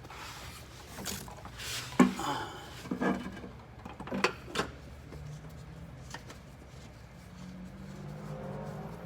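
A few scattered knocks and clanks of the oil filter cap and hand tools as the filter housing is fitted back up under the truck, followed by a steady low hum.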